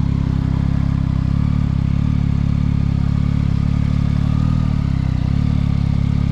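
Yamaha MT-09's 890 cc inline three-cylinder engine running at steady low revs with an even pulse.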